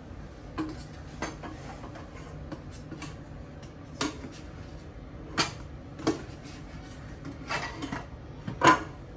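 Spoon and dishes clinking and knocking at irregular intervals while milk is spooned out for pancake batter, the loudest clink near the end.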